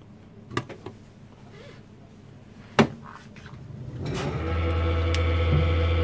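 A few clicks, the loudest a sharp click nearly three seconds in. Then, about four seconds in, the lift motor on the test jig starts under the Otis OVF20 inverter drive, which is driving it in the 'up' direction. The motor rises within half a second to a steady electric hum with a whine above it.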